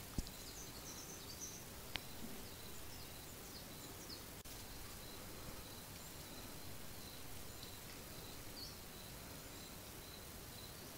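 Faint room ambience with scattered high, quick chirps over a steady hiss and a faint steady high tone. Two sharp knocks, one right at the start and one about two seconds in.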